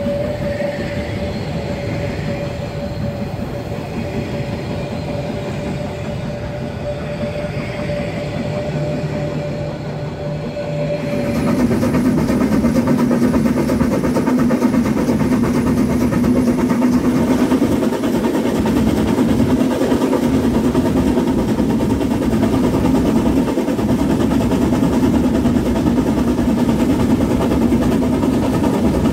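Narrow-gauge train coaches rolling round a curve with a steady high squeal from the wheels. About eleven seconds in this gives way to the louder, rougher sound of the metre-gauge 2-10-2 tank steam locomotive 99 7245 running at speed, heard close up at the engine.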